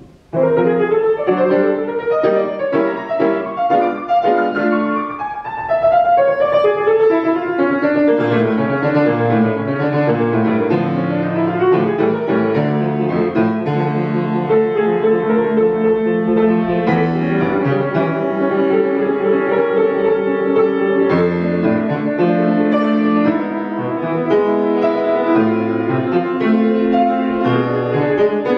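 Grand piano played solo: loud, fast classical passagework with many rapid notes over a low bass line. It sets in with a sudden loud attack.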